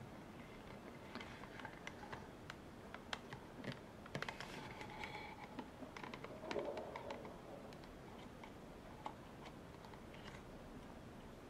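A carving tool working a small piece of wood: faint, irregular clicks and ticks as the blade meets the wood, busiest in the middle, with a couple of short scraping cuts about halfway through.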